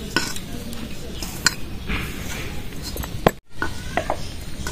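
Hands kneading flour and oil into luchi dough in a stainless steel bowl, with a few sharp metallic clinks against the bowl. The sound cuts out for an instant about three and a half seconds in.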